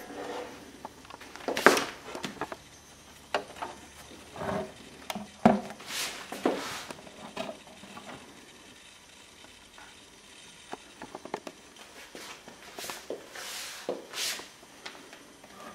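Scattered rustles, clicks and light knocks of hand-held camera handling and fumbling with equipment, at irregular intervals, with no television sound.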